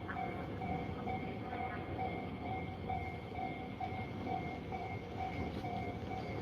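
Japanese level-crossing warning bell ringing steadily at about two dings a second, the barrier down, over the steady running noise of a Tobu Tojo Line train passing the crossing.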